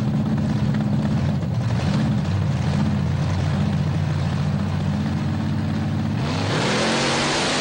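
Two alcohol-burning monster truck engines running at the start line, the pitch wavering up and down as the throttle is worked. About six seconds in they go to full throttle for the launch: the pitch climbs and a broad rushing noise comes in.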